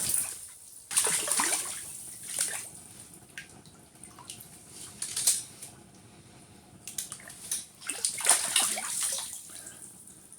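Water splashing and sloshing in an ice-fishing hole in irregular bursts, as a hooked brook trout thrashes at the surface while being landed. The longest run of splashing comes near the end.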